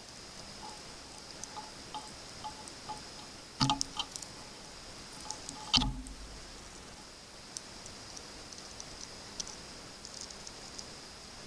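Light clicks and taps from a plastic three-pin plug and its wires being handled, with two louder knocks about four and six seconds in.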